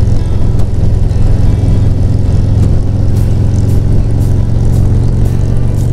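Harley-Davidson Road Glide's V-twin engine running at a steady cruising speed, a constant low drone with no revving.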